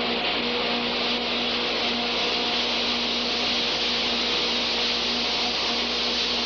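Steady hissing rush of a foamer spraying cleaning foam, with a faint low hum that drops out now and then.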